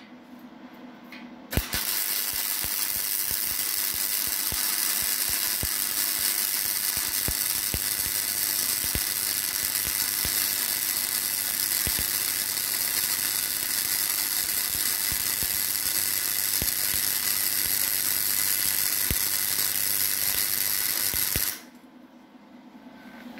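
MIG welding arc from a Cigweld WeldSkill 135 MIG welder running a bead on 3 mm steel plate: a steady loud hiss with scattered sharp pops. It strikes suddenly about a second and a half in, holds for some twenty seconds, and cuts off sharply when the trigger is released near the end.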